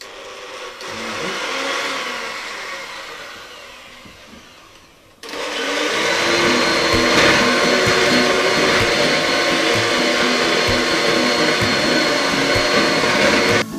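Electric hand mixer running, its beaters whipping double cream in a bowl towards soft peaks. The motor swells and then fades, and at about five seconds it jumps to a louder steady whirr with a thin high whine, which stops abruptly near the end.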